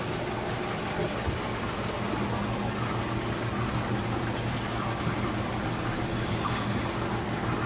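Steady hum of a fish room's tank pumps with circulating water beneath it.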